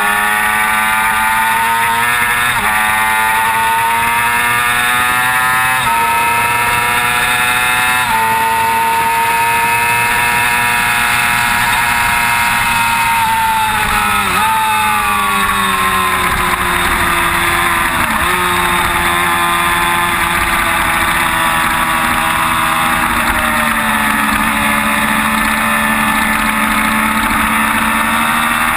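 Sport bike engine at high revs, heard from a camera mounted on the bike, with rushing wind noise over it. The pitch climbs and snaps down with three quick upshifts in the first eight seconds. It then falls and rises again through the middle as the rider backs off and drives on around the track.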